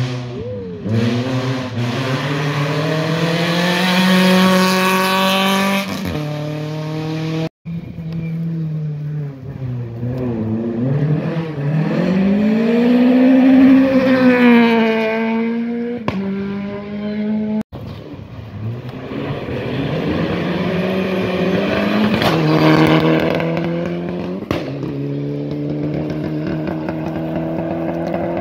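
Rally car engines at full throttle as the cars race past one after another, pitch climbing through each gear and dropping at every shift, in three separate passes that begin abruptly; one of the cars is a Peugeot 208 rally car.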